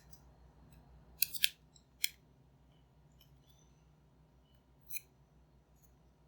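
A few faint, sharp clicks of small plastic and metal headphone parts being handled during a headband repair: two in quick succession just after a second in, another about a second later, and one more near the end.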